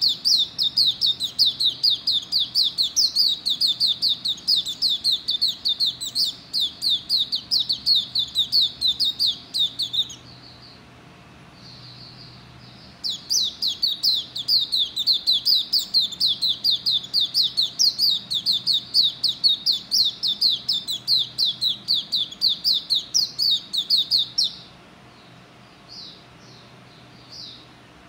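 Hume's white-eye (pleci auriventer) singing two long bouts of rapid, repeated high notes, about four or five a second, broken by a pause of about three seconds; soft chirps fill the pause and the last few seconds. It is the song of a nine-month-old bird that is not yet smooth.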